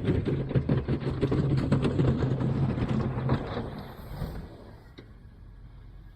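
An engine running with steady clattering and scraping, which drops away about three and a half seconds in, leaving a low rumble.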